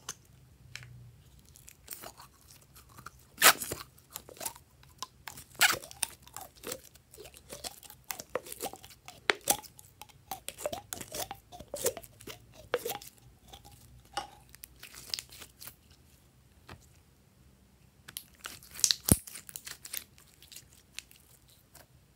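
Plastic container crackling and clicking as it is squeezed and handled, with thick slime squelching and giving small wet pops as it is poured into a bowl of slime. The crackles come thick through the middle, then a last cluster near the end.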